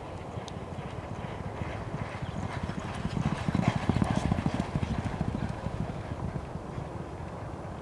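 Two Thoroughbred racehorses galloping in company on a dirt track, a rapid drumming of hoofbeats that grows louder as they pass close by about four seconds in, then fades as they move away.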